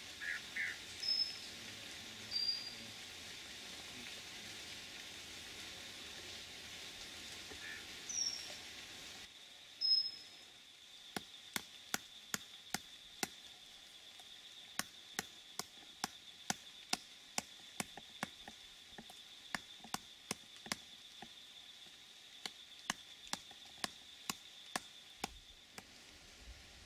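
Birds chirping over a steady, thin, high insect drone; then, a little before halfway, a run of sharp knocks, one or two a second, as tent pegs are driven into the ground.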